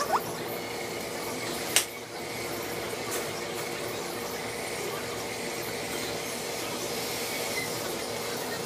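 Steady hum and hiss of restaurant kitchen equipment, with a short squeak right at the start and one sharp knock about two seconds in.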